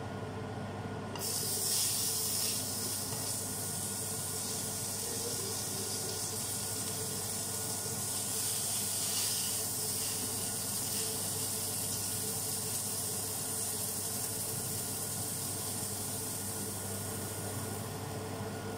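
Banana pancake batter sizzling in a hot frying pan. The hiss starts suddenly about a second in, runs steadily and eases off near the end.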